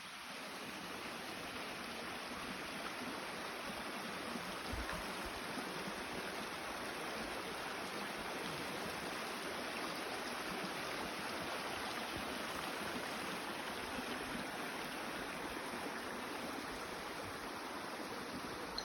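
Forest stream running: a steady, even rush of water.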